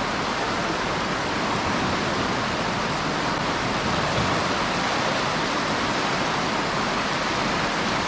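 A river in flood, swollen by rain and snowmelt, its water rushing past in a steady, unbroken noise.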